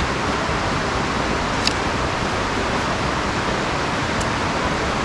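Steady, even rushing noise, with two light clicks, one about a second and a half in and one about four seconds in.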